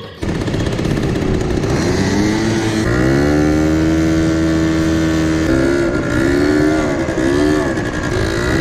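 Quad bike engine running hard under throttle. Its pitch climbs about three seconds in and holds, then drops and climbs again several times as the throttle is eased and opened.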